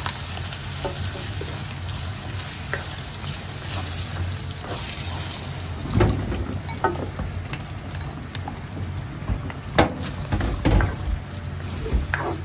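Ground pork and sliced hot dogs sizzling in a frying pan as tomato spaghetti sauce is poured in and stirred with a spatula. The spatula knocks and scrapes against the pan a few times, about six seconds in and again near the end, over a steady low hum.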